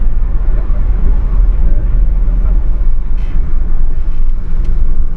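Car driving at road speed, heard from inside the cabin: a steady, loud low rumble of engine and tyres on the road, with a few faint clicks in the middle.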